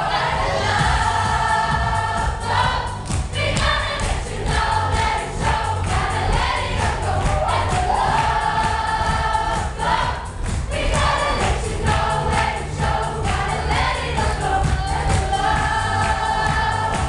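A large gospel choir of children and adults singing an upbeat song, with long held notes over a steady beat.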